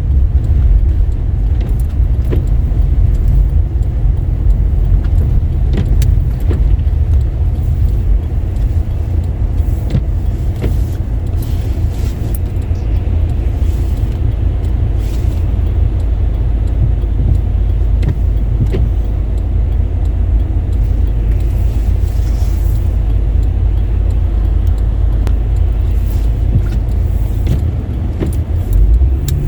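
Car driving on a wet, slushy road in a rain-and-snow mix: a steady low rumble of tyres and engine, with scattered faint clicks.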